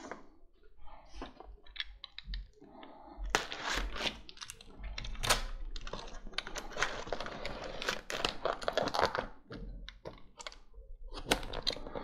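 Utility knife blade cutting and scraping through packing tape on a cardboard box: a run of irregular scratchy strokes and clicks, sparse at first and denser from about three seconds in.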